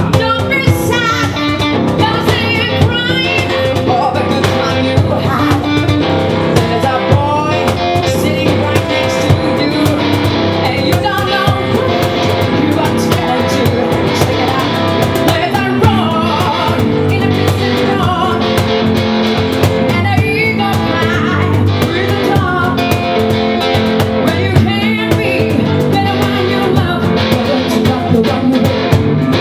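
Live acoustic band music: a woman singing lead into a microphone over a strummed archtop guitar and a cajón keeping the beat.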